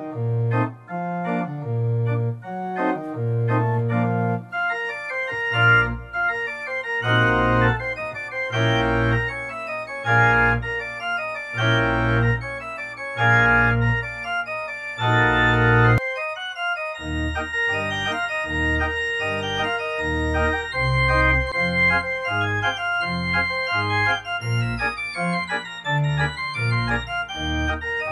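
Organ music: held chords over a stepping bass line. About halfway through, the bass drops out for a moment and a different, lighter passage begins.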